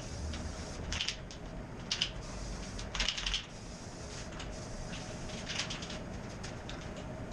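Aerosol can of Rust-Oleum matte clear enamel in use: short hisses of spray and clusters of rattling clicks, roughly once a second.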